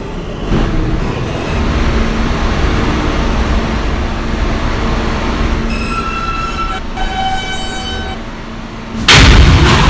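An R160A subway train rumbles as it pulls into the station. Near the end of its braking there are high steady whining tones that step down in pitch. About nine seconds in, a sudden loud burst of hissing air comes as the train comes to a stop.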